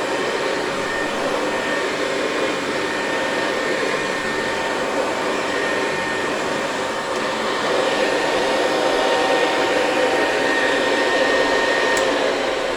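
Hoover Convertible 704 upright vacuum cleaner running steadily on carpet, a loud rush of air with a steady motor whine. Near the end there is a click and the whine begins to drop as the motor winds down.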